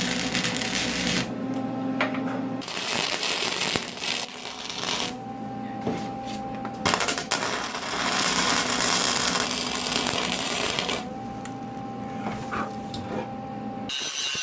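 Small arc welder crackling and sputtering in several runs of a few seconds each, with short pauses between them, as it welds steel floor supports at its maximum setting. A steady hum runs underneath.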